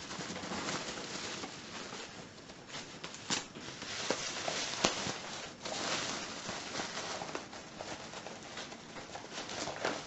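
Packaging being handled during unboxing: a continuous crinkly rustle of plastic wrapping with a few sharp crackles.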